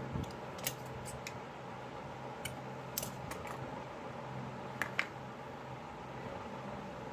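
Scissors snipping black tape into short strips: a scattering of sharp snips and clicks, two close together about five seconds in, over a steady low hum.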